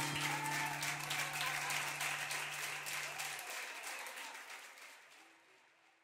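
Audience applauding, fading away to silence near the end.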